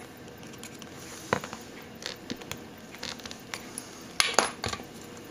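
Small metallic clicks and clinks from the links of a Twist-O-Flex expansion watchband as its side tabs are pried with a small flat-blade screwdriver. The clicks come scattered, with a quick burst of louder ones about four seconds in.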